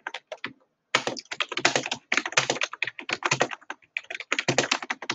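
Typing on a computer keyboard: a few keystrokes, a brief pause, then rapid continuous typing from about a second in.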